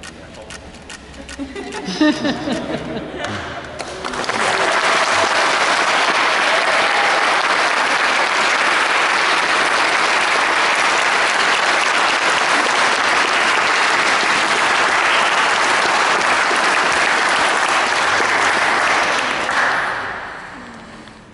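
Wedding guests applauding: a few scattered claps and voices at first, then full, steady applause from about four seconds in, dying away near the end.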